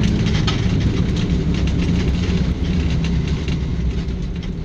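Vehicle engine running steadily at low revs, a deep even drone with scattered short clicks over it.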